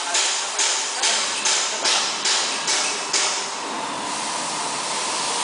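Corrugated-board processing machine running and cycling with sharp hissing strokes about twice a second. The strokes stop a little over three seconds in, leaving the machine's steady running noise with a faint hum.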